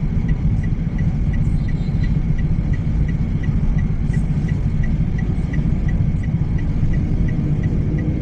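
Steady low rumble of a car's engine and road noise heard from inside the cabin, with a turn-signal indicator ticking evenly about three times a second.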